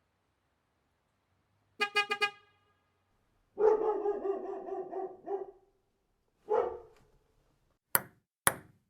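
A car horn toots about four times in quick succession, then a dog barks: first a long drawn-out call, then a shorter bark, and short sharp barks near the end.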